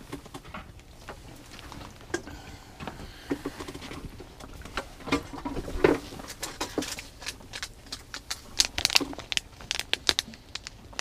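Irregular clicks, taps and crinkling of hands handling fishing gear and a plastic-and-card package of small glow sticks, densest and loudest in the last few seconds.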